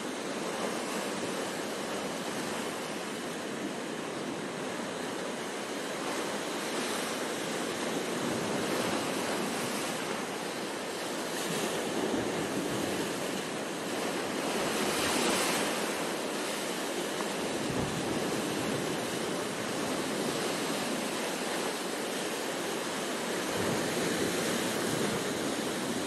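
Sea waves breaking over and around a rocky outcrop: a continuous wash of surf that swells as each wave hits the rocks, loudest about fifteen seconds in.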